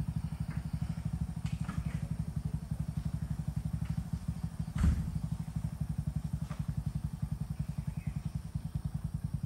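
A vehicle engine idling with a steady, rapid, low putter, and a single thump about five seconds in.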